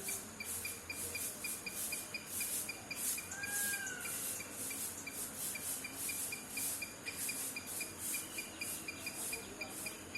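Insects chirping in a steady rhythm of about four chirps a second, over a high hiss that swells and fades. A single short whistled note comes about three and a half seconds in.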